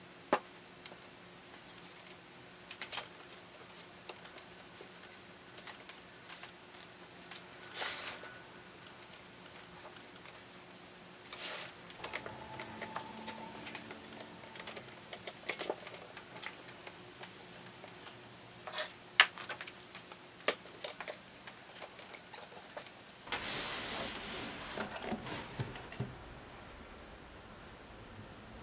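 Scattered clicks and knocks of pine table legs and one-handed bar clamps being handled and set against a round wooden tabletop on a workbench, with the sharpest snap a little past the middle. Near the end comes a few seconds of denser rustling handling noise.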